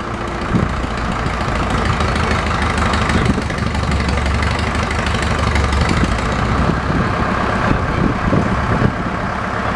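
A heavy engine running steadily with a deep rumble that swells for a few seconds in the middle, with a few scattered knocks and clunks toward the end.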